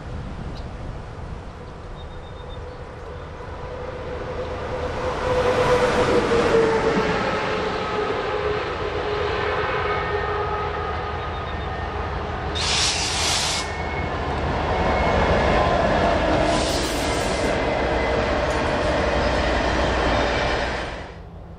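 Canadian Pacific diesel freight locomotive and its train approaching and running past, engine and wheels on the rails, with the locomotive horn sounding as it nears. Two short hissing bursts come near the middle, and the sound cuts off shortly before the end.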